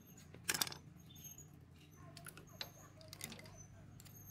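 Faint clicks and light scraping of metal and rubber parts as a motorcycle carburetor is handled and worked loose by hand. There is a short clatter about half a second in and a few sharp clicks later on.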